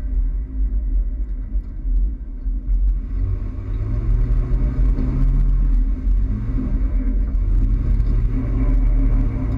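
Toyota Tacoma pickup driving, with a heavy low rumble. The engine note climbs about three seconds in, drops back about six seconds in, then climbs again as the truck accelerates.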